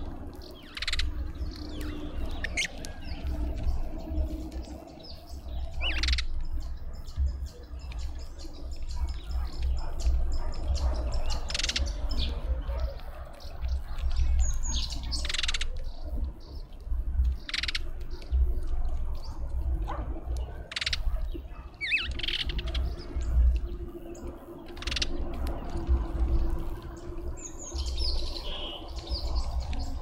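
Birds chirping and squawking in short, scattered calls, about a dozen spread through, some sliding in pitch, over a steady low rumble.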